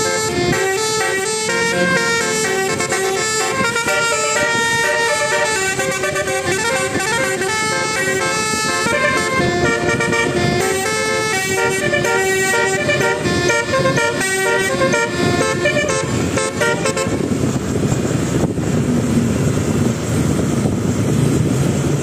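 A bus's basuri telolet horn, a multi-trumpet electric air horn, plays a quick tune of changing notes with several tones sounding together. It stops about 17 seconds in, leaving only the noise of the passing vehicle.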